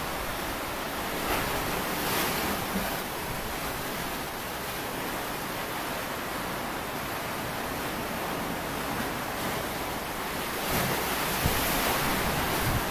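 Sea waves washing in steadily, with wind on the microphone; the surge swells a little about a second in and again near the end.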